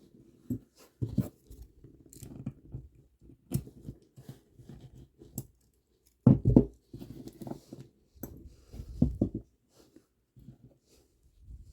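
Beads and stretch cord handled close to the microphone: scattered small clicks, rustles and taps, with louder knocks about six seconds in and again about nine seconds in.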